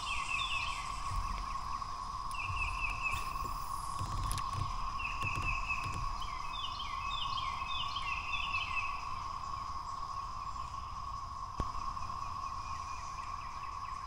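Steady droning chorus of cicadas. Over it a bird sings phrases of short, quickly repeated chirps, several times.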